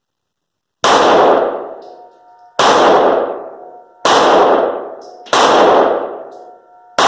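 Smith & Wesson M&P Shield EZ 9mm pistol firing five slow, aimed shots about one and a half seconds apart, starting about a second in. Each loud crack rings out in a long echo inside the enclosed wooden range building.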